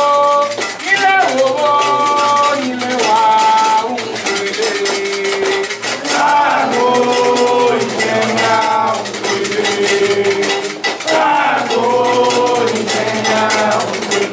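Voices singing a Candomblé chant in long held notes, with shakers and metal percussion rattling steadily throughout.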